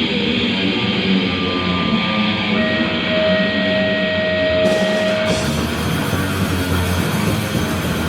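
Deathgrind band playing live: loud distorted electric guitars open the song with held notes, and cymbals and drums come in about halfway through.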